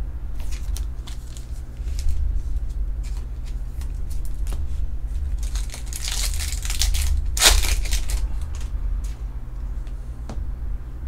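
A trading-card pack wrapper torn open and crinkled, with a stretch of crackling about six seconds in and the loudest tear about a second later, among light clicks of cards being handled. A steady low hum runs underneath.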